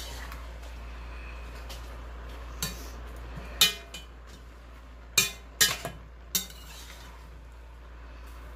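Metal spoon stirring vegetables in an enamelled cast-iron pot, knocking and clinking against the pot's sides and rim about six times, the loudest about three and a half seconds in.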